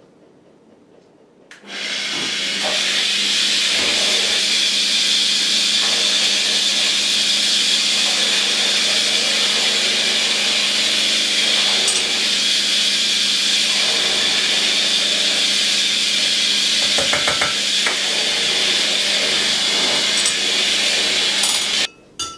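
Corded rotary tool running at a steady high speed through a flexible shaft, spinning a mixing attachment in a jug of liquid to whip guar gum into water. It starts about a second and a half in and runs with a steady whine and hum, with a few brief rattles about two-thirds of the way through, then stops abruptly just before the end.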